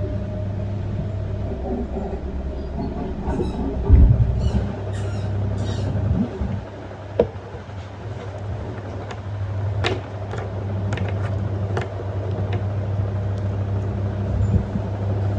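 LG F1222TD washing machine running on a rinse cycle: a steady motor hum with a heavy thump about four seconds in. The hum drops away for a couple of seconds around the middle, with light clicks and knocks, then picks up again.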